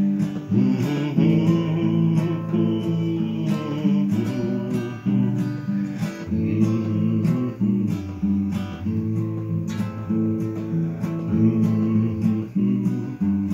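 Acoustic guitar strummed in a steady rhythm, chords ringing: an instrumental break between verses of a country ballad.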